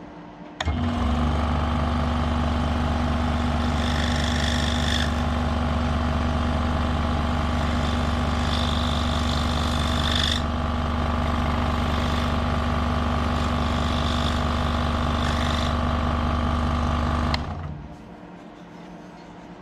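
DeWalt DW788 scroll saw switched on about half a second in and running at a steady speed, its reciprocating blade cutting a workpiece, with brighter, higher sounds coming and going as it cuts. It is switched off near the end and winds down briefly.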